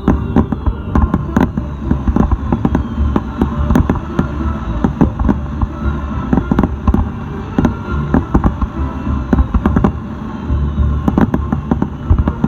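Fireworks finale barrage: a rapid, dense run of shell bursts, several loud bangs a second over a continuous low rumble, with faint falling whistles in the first couple of seconds.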